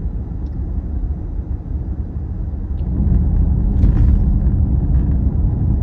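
Car driving, heard from inside the cabin: a steady low rumble of engine and road noise that gets louder about three seconds in.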